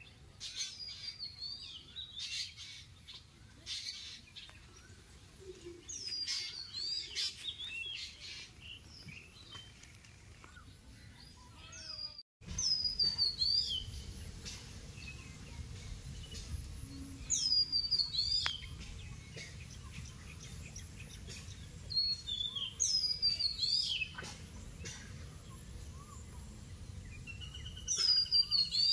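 Wild birds calling: one bird repeats a short, high call that sweeps downward, about every five seconds, and a brief trill comes near the end, over a low steady outdoor background noise. The sound cuts out briefly about twelve seconds in.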